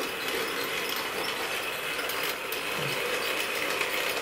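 Wrenn 00 gauge tank locomotive running steadily round a model railway oval, its small electric motor and gears whirring with a light clattering of wheels on the track. The loco is new and not yet run in.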